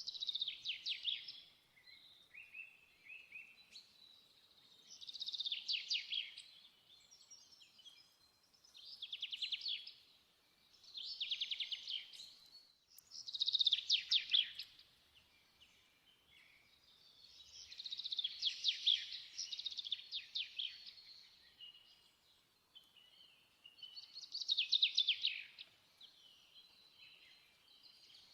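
A songbird singing in repeated phrases of rapid trills and chirps, a phrase every two to five seconds.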